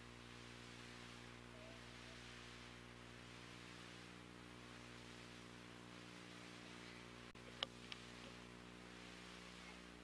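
Near silence: the steady hum and hiss of an old videotape recording, with two short clicks a little after two-thirds of the way through.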